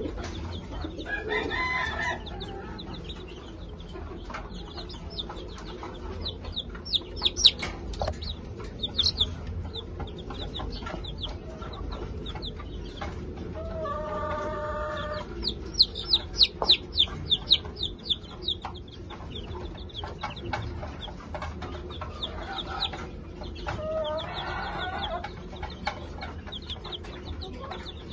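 Baby chicks peeping in quick runs of short, high, falling chirps, with adult chickens clucking. Three longer, drawn-out calls from an adult chicken come near the start, about halfway through and near the end.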